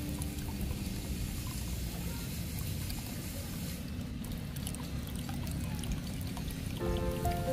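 Steady low rushing noise of wind on the microphone, with background music coming in near the end.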